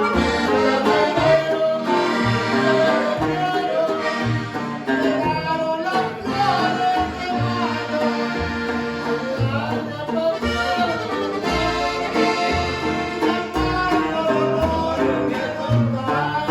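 Mexican norteño music led by an accordion over a steady bass line.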